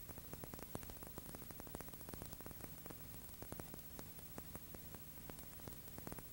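Faint steady hiss with a low hum, broken by many small irregular clicks and crackles: surface noise on an old recording, with no sound of the gun itself.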